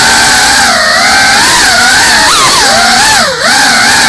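Whine of a GEPRC Cinelog 35 cinewhoop's brushless motors and ducted propellers, the pitch wavering up and down with the throttle. A little past halfway the pitch swings quickly, then near the end it drops sharply with a brief dip in loudness, a throttle cut, before climbing back.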